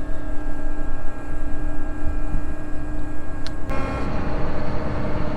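John Deere 9500 combine's diesel engine running steadily with a constant hum and heavy low rumble as the machine is maneuvered; the sound turns fuller and noisier about three and a half seconds in.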